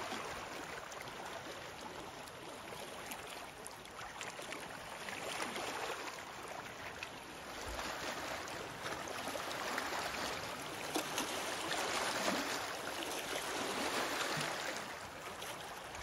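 Small lake waves lapping and washing over rocks and pebbles at the shoreline, swelling and easing every few seconds.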